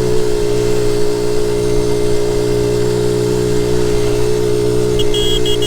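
1976 Honda Z50J1 Monkey's small single-cylinder four-stroke engine running at a steady cruising speed. Near the end comes a quick run of high-pitched beeps.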